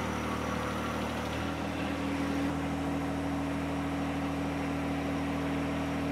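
Compact tractor's diesel engine running steadily while the three-point hitch raises and lowers a PTO-driven implement; the engine note shifts slightly about a second and a half in.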